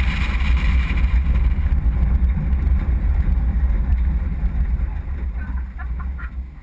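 Off-road 4x4 driving across desert sand: a heavy low rumble of engine and wind buffeting picked up by a bonnet-mounted camera, getting quieter over the last second or so.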